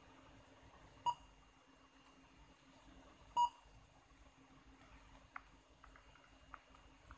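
Touchscreen key beeps from a car navigation head unit as the FM tuning buttons are pressed: two short electronic beeps about two seconds apart, the second slightly longer. A few faint ticks follow near the end.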